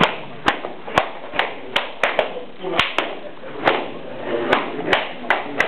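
Jiu-jitsu belts whipped against the back of a gi in a belt-promotion gauntlet: about a dozen sharp cracks at uneven spacing, roughly two a second, with voices in between.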